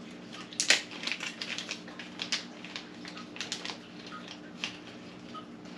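Irregular small clicks and taps of handling a headphone cable's 3.5 mm plug while a threaded jack adapter is screwed onto it, over a faint steady hum; the sharpest click comes just under a second in.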